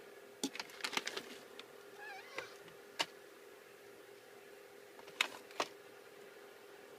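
A few sharp clicks and taps, in a cluster near the start, one about three seconds in and a pair later, with a faint short wavering cat meow about two seconds in, over a steady low hum.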